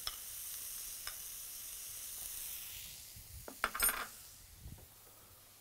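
Butter cubes sizzling as they hit a very hot frying pan of seared beef fillet steaks, a steady high hiss that fades after about three seconds. A couple of brief, sharper sounds come about three and a half seconds in.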